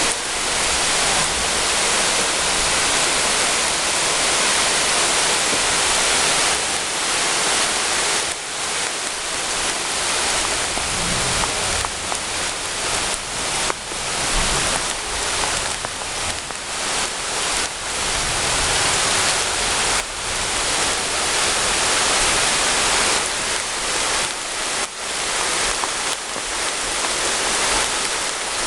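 Heavy rain pouring down: a dense, steady hiss of water that wavers in loudness in the second half.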